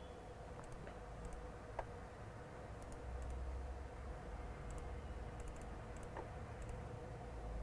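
Quiet room tone with a steady faint hum, broken by a few soft, scattered computer clicks; the clearest comes about two seconds in.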